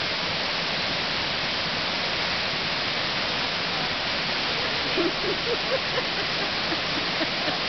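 Steady rush of water pouring down waterfall cascades, an even dense hiss with no pauses.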